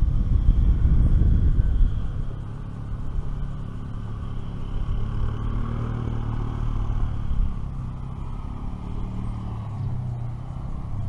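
Pontoon boat's motor running at low speed, a steady low drone, with heavier low rumble from wind on the microphone in the first couple of seconds.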